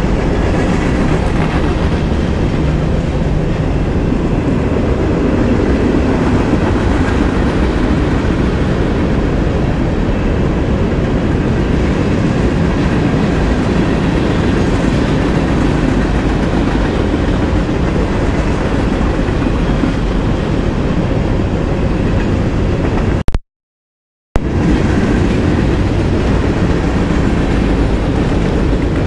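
Freight train cars rolling past close by: steady noise of steel wheels running on the rails, heaviest in the low range. The sound cuts out completely for about a second late on, then resumes unchanged.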